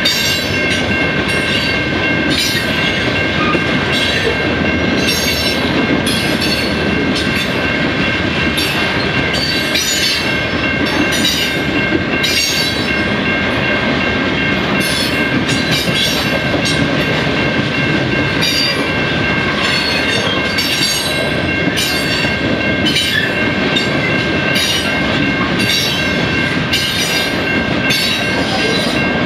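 Cars of a long mixed freight train rolling past: a steady rumble of steel wheels with irregular clicks as the wheelsets cross rail joints. Over it a level-crossing bell rings steadily.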